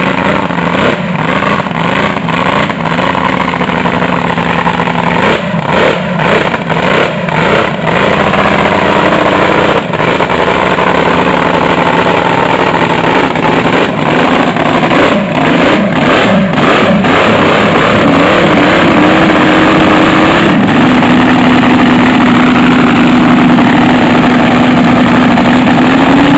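Supercharged alcohol-burning engine of a 1977 Sanger picklefork drag boat, freshly built and on its first startup, running loud and uneven. Its pitch wavers and drops out briefly several times, then it settles to a steady idle about 20 seconds in and begins to rev up right at the end.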